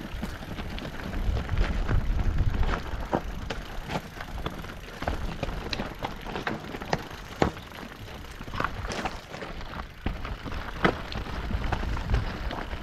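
Mountain bike riding over a rough, stony trail: a steady rumble of wind and tyres, with frequent rattles and knocks from the bike jolting over stones.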